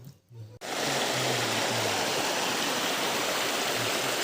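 Rushing river water running loud and steady, a mountain stream swollen by monsoon rain. It starts abruptly about half a second in.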